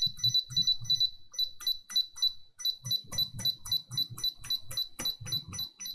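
Laptop keyboard keys on an Acer Aspire E5-511G pressed in quick succession during a key-by-key test, each press clicking and answered by a short high beep. At first about three presses a second, then a brief pause near the middle, then a faster run.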